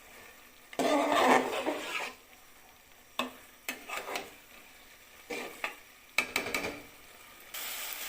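A spatula scraping and stirring rice in a cooking pot as the rice is fried with the braised meat for biryani, in a handful of separate strokes. Near the end a steady sizzle of frying comes in.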